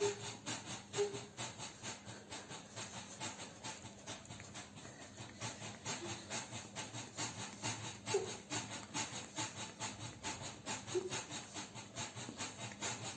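Rhythmic rubbing noise, about four short strokes a second, with a few brief faint voice sounds scattered through it.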